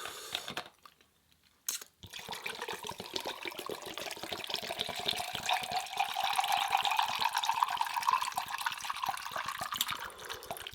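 A drink being poured into a glass, with a crackling fizz and a rising pitch as the glass fills over several seconds.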